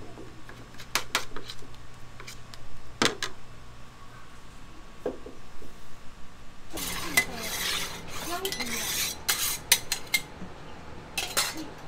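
Scattered light clicks and knocks of kitchen clatter, then from about seven seconds in a metal spatula scraping across an oiled flat-top griddle with a dense hiss, with a few more clicks near the end.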